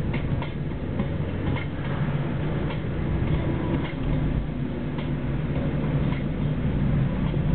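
Car engine and road noise heard from inside the cabin while driving at a steady speed, with a few faint clicks and rattles.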